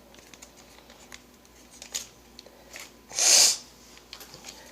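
A single loud, short burst of breath through a congested nose, a sniff or snort, about three seconds in, amid faint clicks and crinkles from a foil sheet-mask packet being handled.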